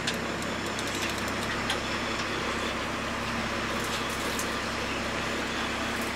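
Steady low drone of a boat's engine running, under a constant hiss of wind and sea, with a few faint ticks.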